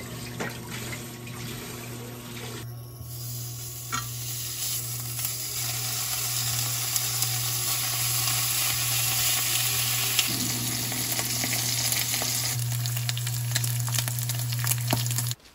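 Pork belly (samgyeopsal) sizzling as it fries in a pan, over a steady low hum, louder from about three seconds in.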